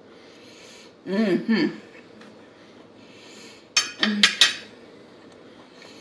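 Cutlery clinking against a dinner plate in a few quick, sharp clinks about four seconds in. About a second in there is a closed-mouth 'mmm' hum of enjoyment while chewing.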